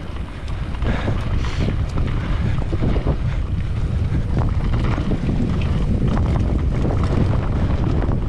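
Wind buffeting the microphone of a handlebar-mounted camera on a mountain bike riding down a dirt singletrack, with the knobby tyres rolling on dirt and the bike rattling over small bumps. It gets louder about half a second in and stays loud.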